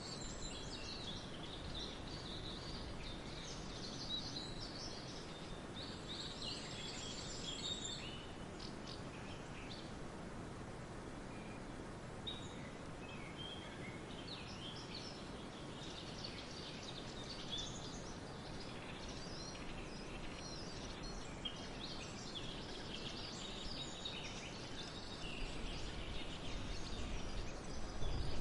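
Songbirds singing and chirping over a steady hiss of outdoor background noise, with a lull in the song about a third of the way through. A low rumble grows in the last few seconds.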